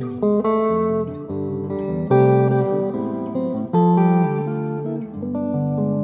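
Solo Telecaster-style electric guitar playing sustained chords over low bass notes, with a new chord struck about every one and a half seconds.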